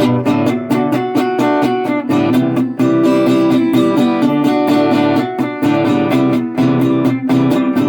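Resonator guitar picked with a flatpick in a quick, continuous run of notes. It sounds shaky, which the player puts down to the camera's microphone being unable to handle the resonator's chorus.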